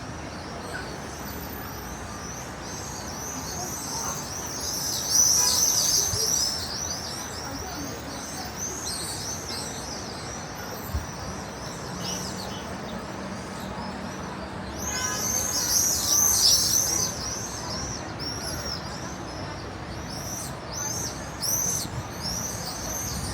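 A large flock of small birds chirping and twittering together without a break, swelling into louder flurries about five seconds and about fifteen seconds in.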